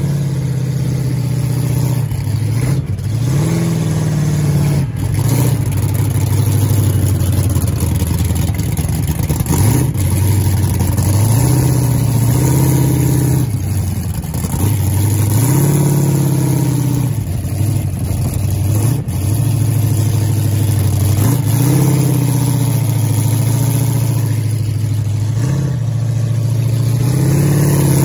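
A ride truck's engine running hard and revving up and down repeatedly, its pitch rising and falling every few seconds as the truck is driven, heard from on board.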